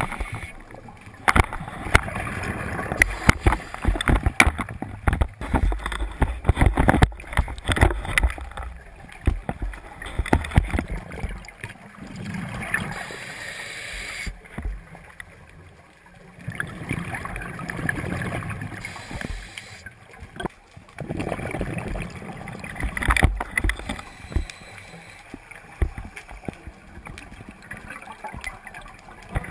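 Scuba regulator breathing heard underwater through a camera housing: exhaled bubbles surge about every five seconds. A rapid run of clicks and knocks fills the first third.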